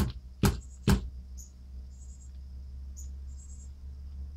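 Fuel pump assembly tapped against a flat surface three times, about two taps a second, to seat its filter sock; the taps stop about a second in. Crickets chirp over a steady low hum through the rest.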